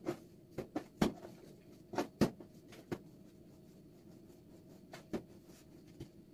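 Scattered light knocks and taps of hands working with kitchen utensils and dishes. They come thickly in the first three seconds, then only a few more sparse ones.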